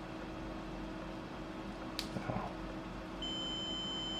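Rohde & Schwarz HMC8012 bench multimeter in diode-test mode: a click and brief handling noise about halfway, then its beeper sounds a steady high beep near the end. The beep signals a forward-biased diode conducting, its forward voltage below the 0.7 V beep threshold.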